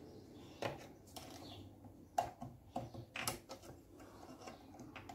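Faint, irregular metallic clicks and taps of hand tools working a Seeger circlip off the gear shaft of a Gilera 200 motorcycle engine.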